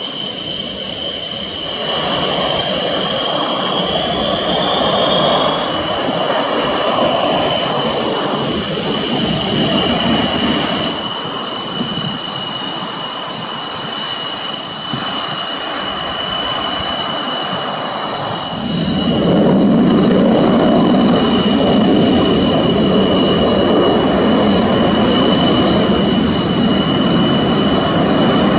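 MiG-29 twin RD-33 turbofan jet engines running with a steady high-pitched turbine whistle over the rush of jet noise. About two-thirds of the way through, the sound grows louder and deeper as the engines bring in more thrust, and it stays at that level.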